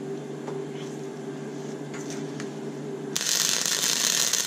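A steady low hum, then about three seconds in a wire-feed welder strikes an arc and welds with a loud, even crackling hiss.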